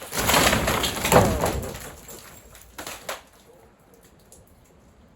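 Wooden pergola beams breaking and crashing down: a loud crash of about two seconds, followed by two sharp knocks about three seconds in.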